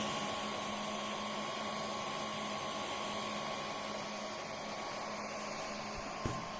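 Small cooling fan running with a steady whir and a faint steady hum, from a 3D printer fitted with a laser module. A single click sounds near the end.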